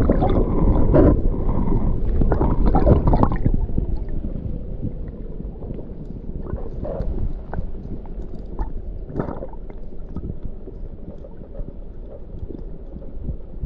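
River water rushing and gurgling, with wind rumbling on the microphone and a few small knocks. It is loudest for the first three seconds or so, then settles to a steadier, lower rush.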